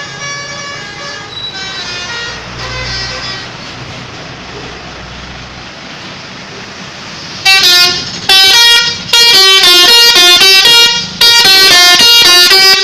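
Multi-trumpet telolet bus air horn ('corong India') playing a melody of changing notes. It is fainter at first, then a little past halfway becomes very loud, sounding in a run of blasts with short breaks between them.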